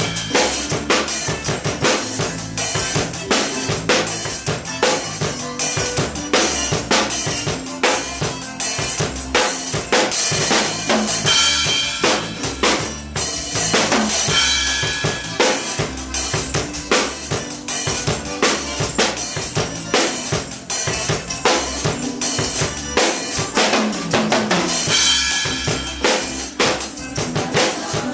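Pearl drum kit played continuously, with bass drum and snare strokes driving a dense beat throughout.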